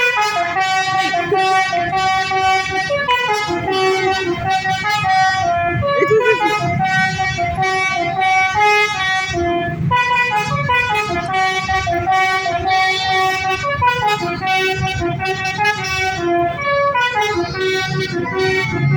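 Bus 'telolet' multi-tone horn playing a melody, held notes stepping from pitch to pitch in phrases a few seconds long, over a low rumble.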